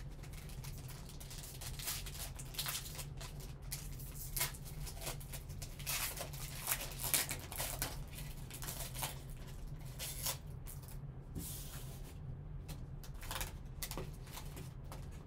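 Foil wrapper of a Panini Obsidian football card pack being crinkled and torn open by hand: a long run of rustles and rips, busiest in the middle.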